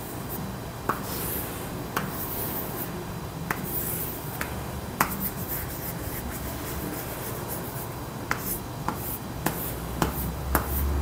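Chalk drawing on a chalkboard: scratchy strokes broken by sharp taps of the chalk against the board, about ten of them, irregularly spaced.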